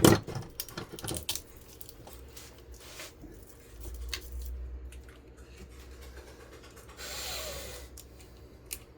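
Hand tools clicking and knocking against a ceiling fan motor's metal core while the copper winding is cut and pulled out. There is a sharp knock at the start, a cluster of clicks in the first second or so, and a short scraping rub about seven seconds in.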